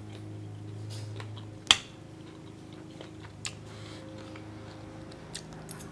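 A fork clicking against a ceramic plate: one sharp click about two seconds in, then a few lighter clicks, over a steady low hum.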